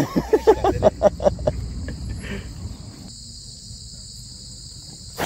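Steady high-pitched insect chorus, like crickets chirring, with low voices chattering over it for the first second or so.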